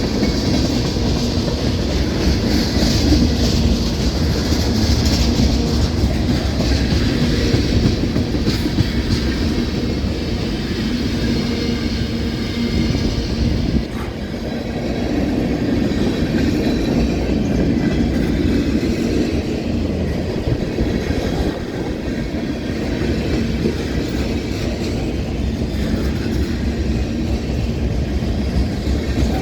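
Union Pacific manifest freight train rolling past, its cars' steel wheels clattering and rumbling on the rails in a steady, loud stream of noise.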